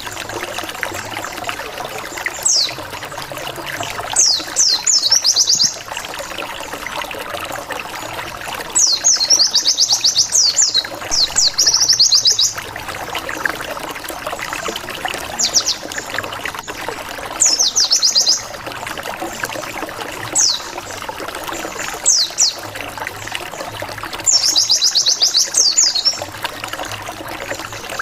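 White-eye (pleci) song: bursts of rapid, high 'wit wit wit' notes in quick series, each lasting about a second or two and repeated every few seconds, a lure call that sets rival white-eyes off answering. A steady trickling-water hiss runs underneath.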